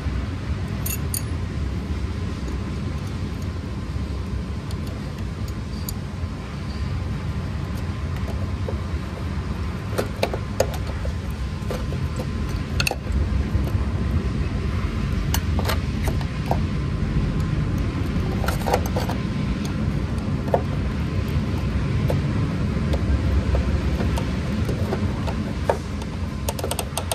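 Open-end wrenches clinking and tapping on a brass compression fitting as it is tightened onto a nylon fuel return line: scattered short metallic clicks over a steady low rumble.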